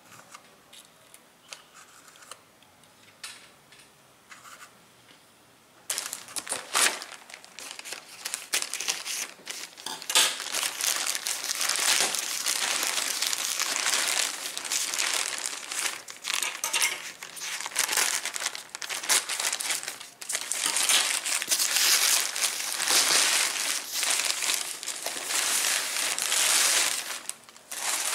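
Black plastic mailing bag crinkling and rustling loudly in irregular surges as a foam-wrapped parcel is pulled out of it, starting about six seconds in. Before that come a few faint light clicks of miniature porcelain tea-set pieces being handled.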